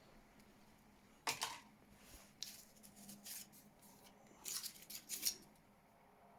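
Faint handling noise from a Trayvax Summit wallet being picked up and turned over: a few short scrapes and clicks, one about a second in and a quick cluster of them near the end.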